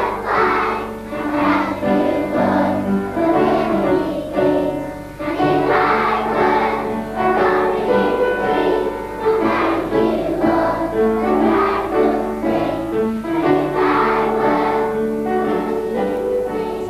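Music: a choir singing a song with held notes over an instrumental accompaniment.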